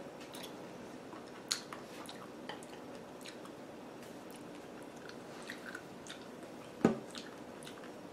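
Soft chewing and mouth sounds of someone eating a chocolate-covered strawberry, with a few small clicks and a short hum about seven seconds in.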